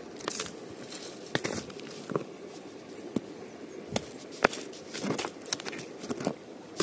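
A bare hand scraping and sweeping through loose river gravel and sand, with small stones clicking and knocking against each other at irregular intervals.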